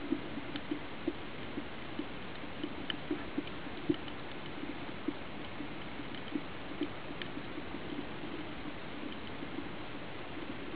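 Underwater reef ambience picked up by a camera in its waterproof housing: a steady low hiss with scattered, irregular clicks.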